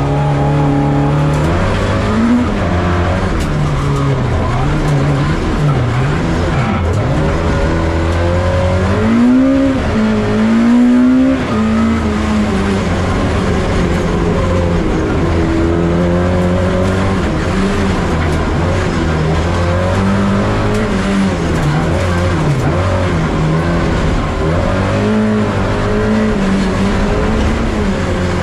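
Lexus IS200 rallycross car's engine heard from inside the cockpit at race pace, the pitch rising and falling again and again with throttle and gear changes, with a long climb in revs about ten seconds in.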